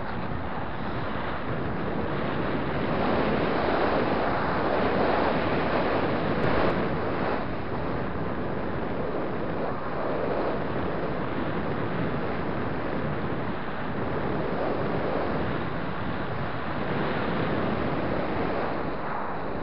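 Wind rushing over the microphone of a camera on a moving road bike, a steady noise that swells and eases every few seconds.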